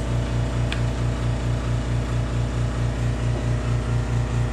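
A machine running steadily: a low hum with many overtones that throbs about six times a second.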